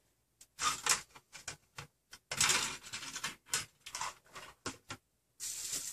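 Small metal parts clicking and rattling against each other in a plastic parts bin as a hand rummages through it, in an irregular clatter, with a softer rustle near the end.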